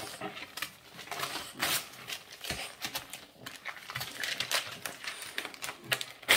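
Glossy catalogue paper rustling, crinkling and tearing as a Boston terrier bites and rips at the pages, in irregular quick crackles.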